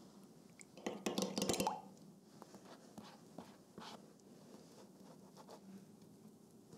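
A metal spoon clinks and scrapes briefly against a glass measuring jug while raspberry sauce is mixed with water, about a second in. It is followed by soft, faint dabs and strokes of a silicone pastry brush soaking a sponge cake layer.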